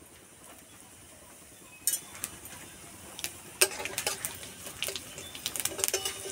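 Metal spatula scraping and tapping against a metal kadai while whole cumin, coriander and fennel seeds sizzle and crackle in hot mustard oil. The sound is faint at first; the clicks and scrapes start about two seconds in and grow busier after about three and a half seconds.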